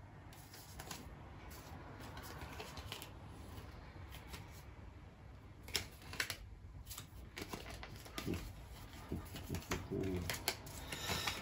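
Tarot cards being shuffled and handled: a run of light, irregular clicks and flicks over a low steady hum.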